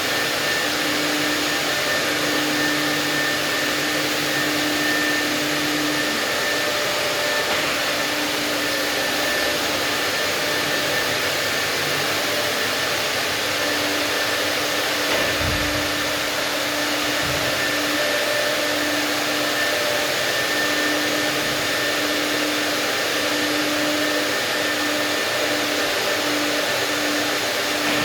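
Vortex industrial vacuum cleaner running steadily, sucking up construction dust, its motor giving a steady high whine over the rush of air. Two brief low thumps come about halfway through.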